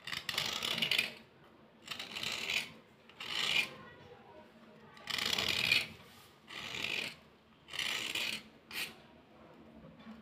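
A flat metal file scraping along a thick white Vaigai-brand slate pencil, shaving off chalky powder. About seven rasping strokes with short pauses between them.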